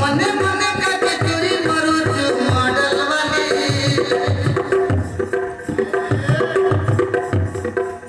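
Folk dance music with a steady, evenly spaced drum beat under a wavering melody.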